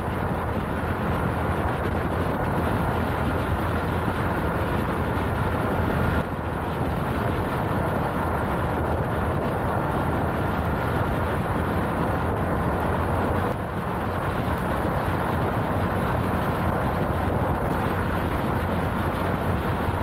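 Beta Alp single-cylinder trail motorcycle running at a steady road speed, its engine note mixed with heavy wind rush on the microphone.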